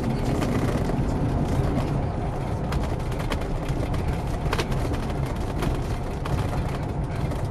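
Steady low rumble of a Bentley Continental R's 6.75-litre turbocharged V8, heard from inside the cabin, with a few short sharp clicks or knocks about three to five seconds in.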